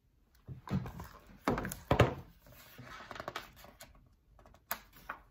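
Handling noise from a large picture book being moved and its pages handled: a few knocks in the first two seconds, the loudest about two seconds in, then softer rustling and small taps.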